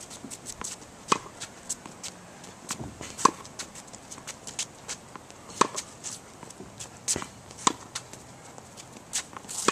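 Tennis rally: racket strings striking the ball with a sharp pock about every two seconds, with lighter taps and footsteps on the hard court between.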